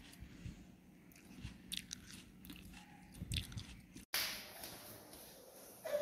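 Faint crunching and chewing of a toddler eating a piece of apple, a few small crisp clicks. About four seconds in it cuts off abruptly and gives way to a faint hiss.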